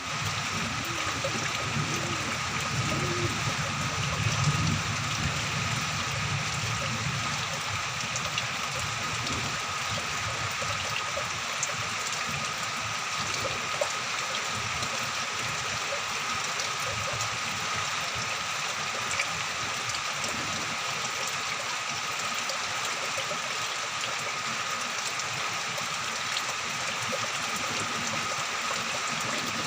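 Steady rain falling, a constant even hiss with scattered drop ticks.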